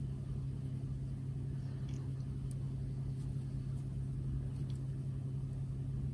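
Steady low hum of background room noise, with a few faint light clicks.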